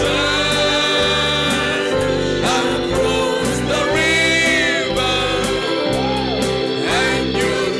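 Gospel worship song: voices holding long sung notes over a band with a steady beat.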